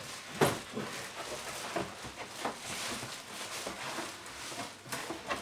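Cardboard box and plastic packaging rustling, scraping and knocking as a new airfryer is worked out of its box, with one sharp knock about half a second in.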